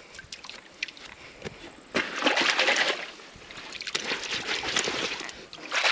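Water splashing and sloshing in a shallow stream in two bouts, the first starting about two seconds in, as mud is washed off a motorcycle.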